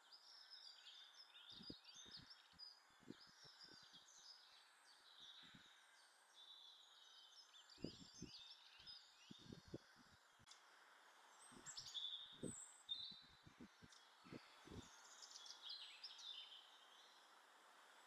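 Quiet background birdsong, with many short high chirps and trills from small songbirds, and three runs of dull low taps as a Eurasian jay pecks food from the wooden log feeder right by the camera.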